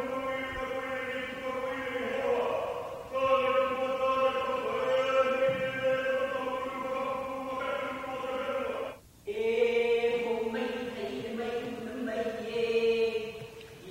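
Voices chanting in long, steady held notes, with a short break about nine seconds in.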